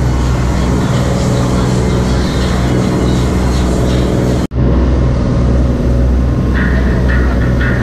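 Boat engine running steadily under way, with wind and rushing water over it. There is a brief drop-out about four and a half seconds in.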